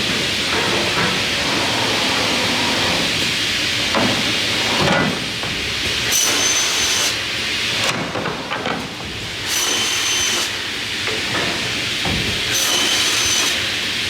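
Optimising CNC crosscut saw running: steady machine noise with a few knocks, and three stretches of louder high hiss with a thin whine, about three seconds apart.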